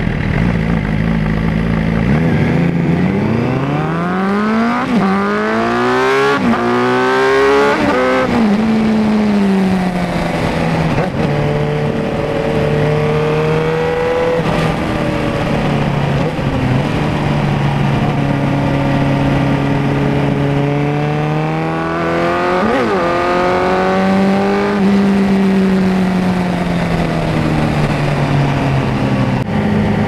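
Suzuki GSX-R750 inline-four engine accelerating hard from low speed, rising quickly and dropping in pitch at three quick upshifts. It then cruises at a steady pitch, gets a second shorter burst of throttle with a quick rev spike about two-thirds of the way through, and slowly drops in pitch towards the end.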